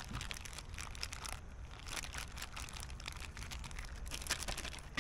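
Plastic zip-top bag crinkling in an irregular run of small crackles as it is handled with the marinating fish collar inside.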